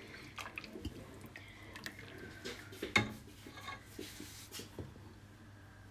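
Silicone spatula stirring thick semolina kheer in a metal saucepan: faint wet squelching with soft scrapes and taps against the pan, one a little louder about three seconds in. The kheer is thick because the semolina has swelled in the milk.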